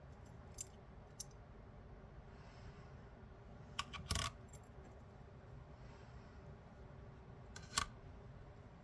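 Small metal fidget-spinner buttons handled and set down, likely on a scale: a few light clicks, then a cluster of clinks about four seconds in and another near the end.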